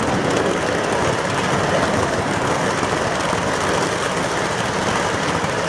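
Model train running past at close range: the steady sound of its cars' wheels rolling on the track.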